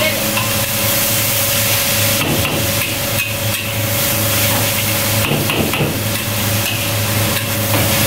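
Metal ladle clanking and scraping against a large steel wok as rice and vegetables are stir-fried, in bursts of knocks starting about two seconds in. A steady low hum runs underneath.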